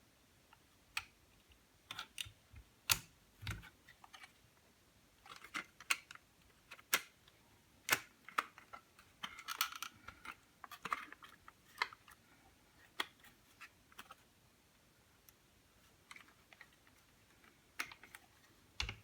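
Irregular light clicks and taps, one or two a second, busiest in the middle.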